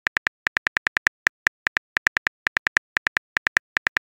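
Phone keyboard click sounds: a quick, slightly uneven run of short identical ticks, about six or seven a second, one for each letter of a text message being typed.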